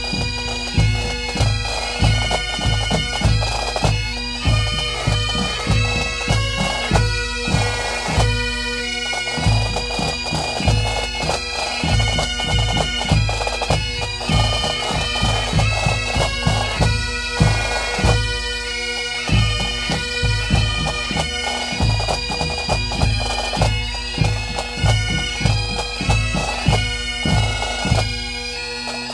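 Pipe band playing: massed Great Highland bagpipes sounding a melody over steady drones, with snare drums and a bass drum keeping time at about two beats a second.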